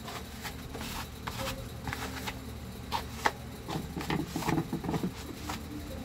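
Plastic motor cover of a Mondial fan being handled and wiped with a cloth: irregular small clicks, taps and rubbing scrapes, with a steady low hum underneath.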